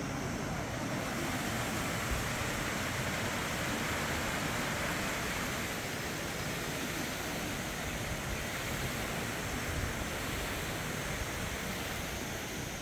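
Steady rush of river water running over rocks and shallows below, a little louder around the middle, with wind buffeting the microphone.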